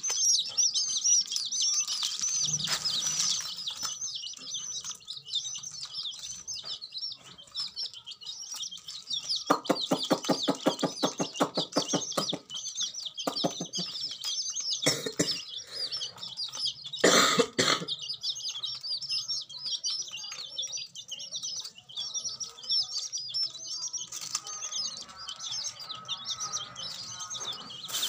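A crowd of newly hatched chicks peeping constantly in rapid, high-pitched chirps. A fast even run of clicks lasts about three seconds near the middle, and a short loud noise breaks in about two-thirds of the way through.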